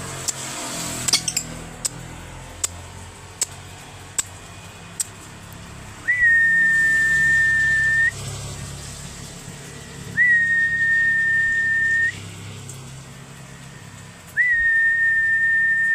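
Three long, steady, high whistle notes of about two seconds each, evenly spaced about four seconds apart, starting about six seconds in. Before them, a few sharp clicks over a low steady hum.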